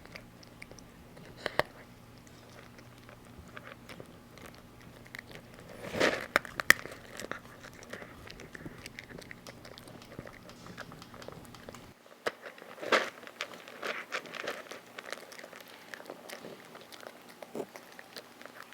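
A cat chewing and crunching dry kibble, with irregular crisp crunches and clicks of its teeth. The crunching is loudest in clusters about six seconds in and again about thirteen seconds in.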